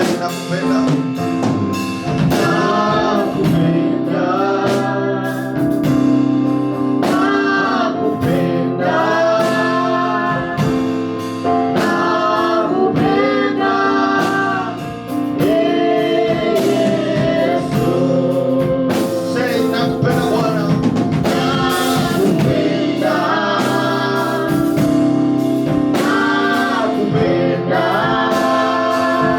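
Gospel praise-and-worship music: singing in phrases over steady held instrumental chords.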